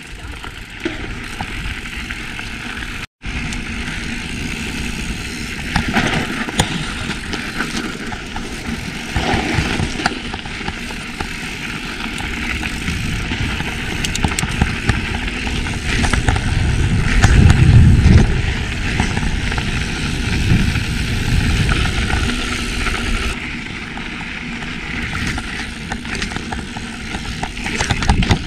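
Mountain bike being ridden along a trail: a steady rush of wind on the microphone with tyre and frame rattle, swelling into a heavier low rumble about 17 seconds in. The sound cuts out for an instant about three seconds in.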